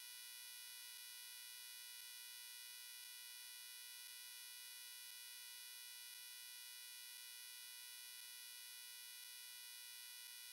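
Faint, steady electronic buzz at one fixed pitch with a bright, thin edge, unchanging throughout.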